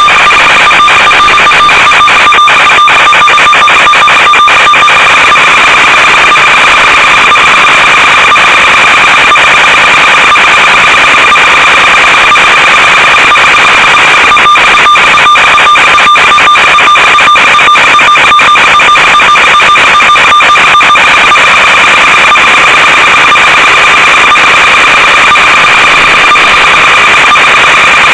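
Loud, steady static hiss with a constant high-pitched buzz, the audio channel of an analog FPV video link, breaking into clicking crackles in stretches a couple of seconds in and again around the middle.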